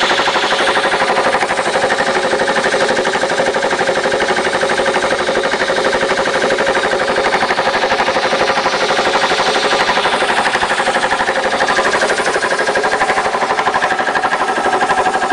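Husky belt-driven air compressor running, its electric motor driving the pump in a fast, even chugging that keeps going at about 100 psi instead of shutting off. The owner thinks a pinhole leak in the tank stops it building enough pressure to trip the pressure switch.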